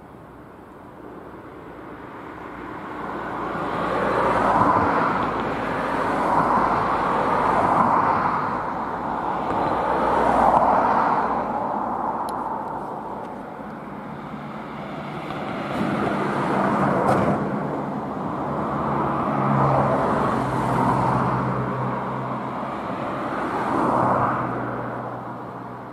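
Road traffic: cars passing one after another, their tyre and engine noise swelling and fading in a string of passes. A steady low hum joins about two-thirds of the way through.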